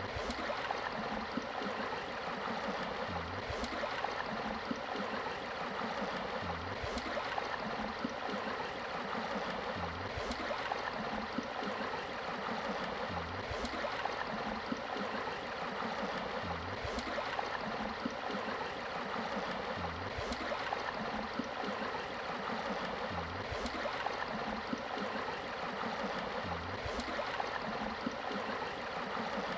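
Steady rushing and babbling of stream water. A soft low thump and a faint tick recur about every three and a half seconds, like a looped recording.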